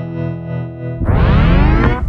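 Electronic background music: held chords, then about halfway through a loud synthesizer sweep comes in.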